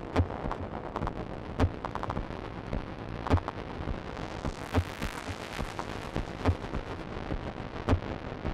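Experimental electronic music from a modular synthesizer: a deep, kick-like thump about every second and a half over a dense, crackling, noisy texture. A hiss swells up about five seconds in and then falls back.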